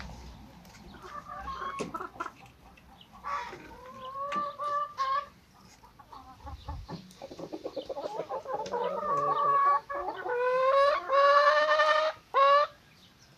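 Domestic chickens clucking and calling: a few drawn-out calls in the first five seconds, a quick run of clucks about seven seconds in, then loud, long calls near the end.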